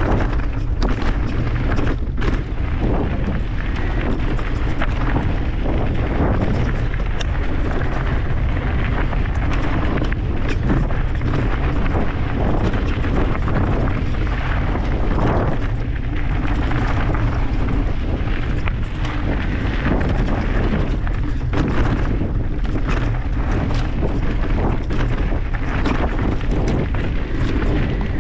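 Mountain bike ridden down a rough dirt trail: a steady low wind rumble on the camera microphone, with frequent clatter and knocks as the bike and tyres run over bumps.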